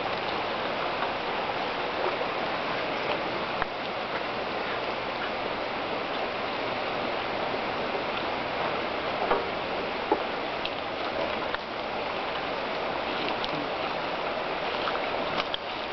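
Shallow, fast-flowing river running over rocks: a steady rush of water, with a few faint clicks and two sharper ones about nine and ten seconds in.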